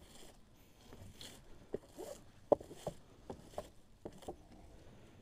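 Faint rustling and a scattered series of light clicks and knocks as a boxed table is tied with plastic raffia string, which slips as it is pulled tight.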